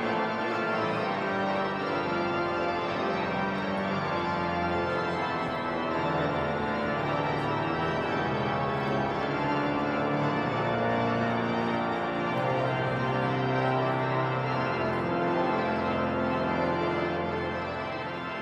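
Large cathedral pipe organ playing sustained full chords over deep pedal notes, the harmony shifting every second or two.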